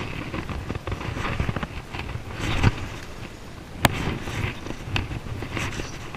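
Fly line stripped in by hand through the rod guides in quick, uneven pulls: a run of short rustling scrapes and clicks, one sharp click a little past halfway.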